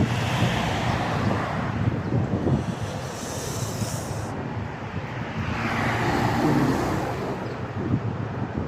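Wind buffeting the microphone in low irregular rumbles over a steady rush of outdoor noise, swelling louder about six seconds in.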